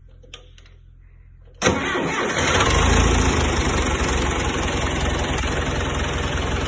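John Deere 2130 tractor's three-cylinder diesel engine starting: after a faint click, it fires abruptly about a second and a half in, runs up briefly, then settles into a steady idle.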